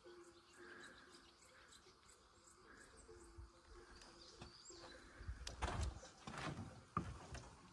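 Faint birds chirping over quiet outdoor background noise. From about five seconds in come a few louder knocks and rustles.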